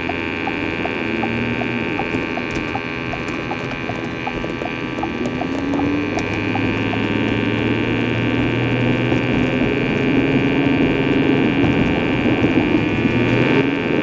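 Cabin sound of a 2011 Ford Edge's 3.5 L Duratec V6 pulling away and accelerating hard, its engine note rising and growing louder. Under it runs a steady high whine, with a rapid regular ticking over the first half.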